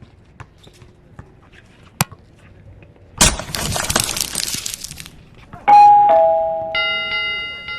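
A sharp click, then a noisy crash-like burst lasting about two seconds, then a two-note falling ding-dong chime that rings into a held bright chord near the end.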